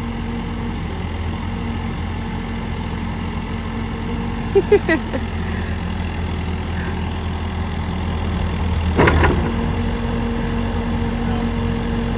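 Excavator's diesel engine running steadily, a low hum with a held tone, as its bucket is worked. A brief loud burst of noise about nine seconds in stands out over the engine.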